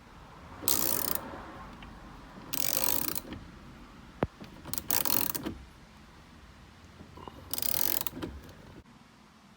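Ratchet wrench clicking in four strokes of about half a second each, turning the centre bolt of a steering wheel puller to break the steering wheel loose from its shaft. A single sharp crack comes about four seconds in.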